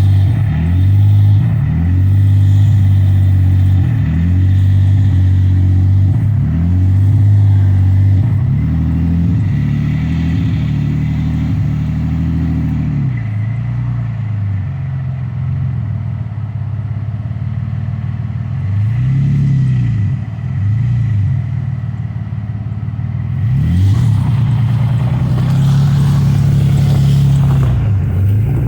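Dodge Magnum's V6 engine revving up and falling back over and over as the car is worked free of a snowy, icy parking spot. It is steadier and a little quieter through the middle stretch, then revs again toward the end.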